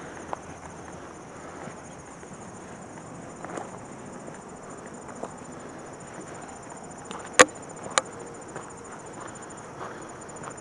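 A steady, high insect chorus, with footsteps on a dirt trail. Two sharp snaps stand out about seven and eight seconds in.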